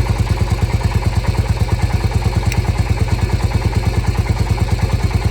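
1987 Honda TRX350 FourTrax's single-cylinder four-stroke engine idling steadily, an even pulse of about ten beats a second, running as it should on its new fuel filter and fuel pump.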